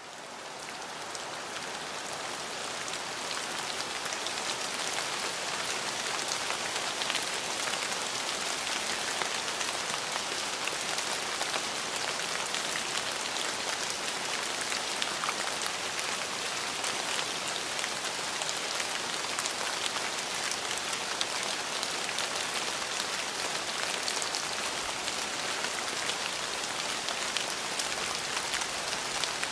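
Steady rain falling on a surface, with many individual drops ticking through it. It swells up over the first few seconds, then holds even with no thunder.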